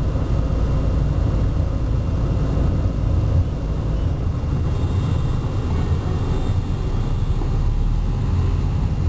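Moving car's steady low rumble of engine and road noise, heard from inside the cabin.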